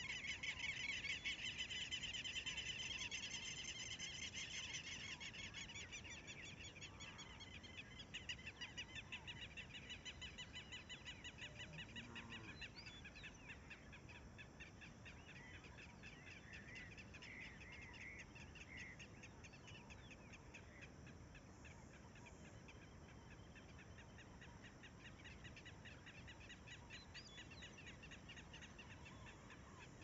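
Dawn chorus: many dense, rapid trilling calls, loudest in the first few seconds and then fading, with a few separate bird chirps in the middle.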